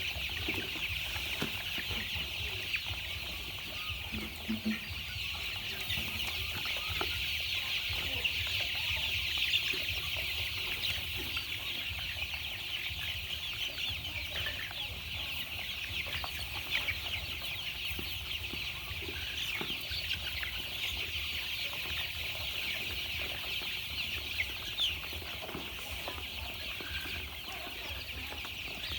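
A brood of young chicks peeping all together: a dense, steady chorus of many overlapping high-pitched cheeps.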